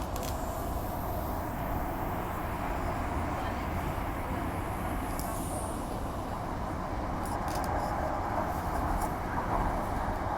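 Steady running noise of a Walkers Limited A-series electric multiple unit heard from inside the carriage as it travels along the line: a continuous rumble of wheels on rail, with a hum that grows slightly louder near the end and a few faint clicks about seven seconds in.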